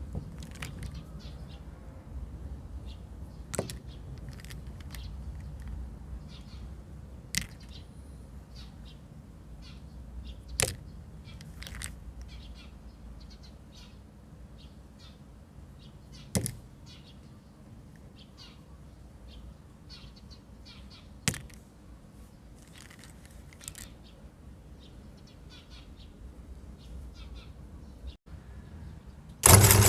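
Birds chirping over a low background hum, with a few sharp clicks every few seconds. Near the end an electric meat grinder's motor switches on with a sudden, loud, steady hum.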